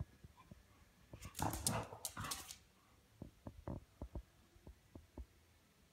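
Dog at play with a cat: a quick run of short, breathy huffs from the dog about a second in, then soft scattered taps of paws on a tile floor.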